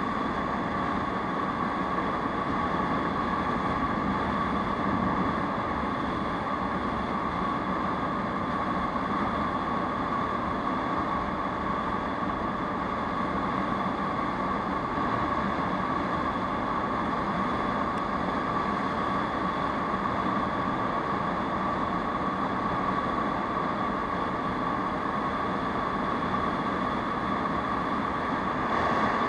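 Aprilia SR 150 scooter's single-cylinder engine running at a steady cruising speed, an even drone mixed with wind and road noise on the on-board camera.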